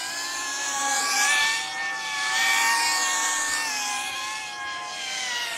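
FPV quadcopter's motors and propellers whining in flight: a steady hum of several tones that rise and fall slightly with the throttle, with a whooshing sweep in the hiss as it moves.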